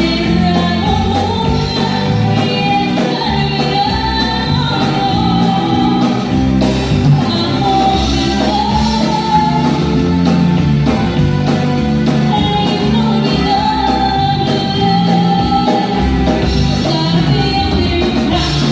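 A woman singing into a microphone, backed by a live band with electric guitars. The sung melody holds long wavering notes throughout.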